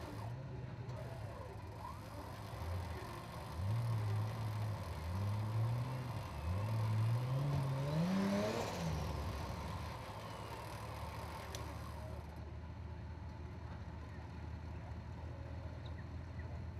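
Toyota 80 Series LandCruiser winch truck's engine revved in three short bursts, each rising in pitch and the last climbing highest, then dropping back to a steady idle.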